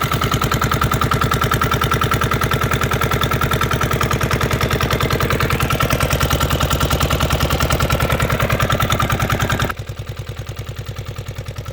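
Boat engine running steadily with a fast, even pulse. It drops suddenly to a quieter level near the end.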